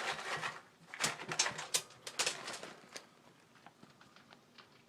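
Crinkling and clicking of a plastic cat-treat bag being handled and shaken, a quick run of sharp crackles over about three seconds that then dies away to a few faint ticks.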